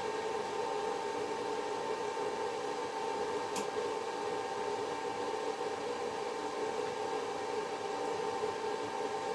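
A steady machine hum with a fan-like hiss, with one sharp click about three and a half seconds in.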